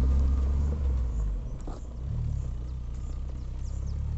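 Volkswagen hatchback's engine running as the car drives off up a dirt road, the sound fading as it moves away. The engine note dips and rises briefly about two seconds in.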